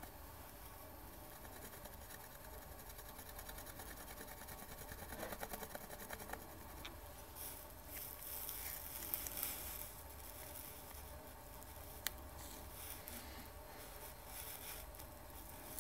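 Pencil tip scratching and rubbing over masking tape on a plastic model part in short strokes, with a sharp click about twelve seconds in.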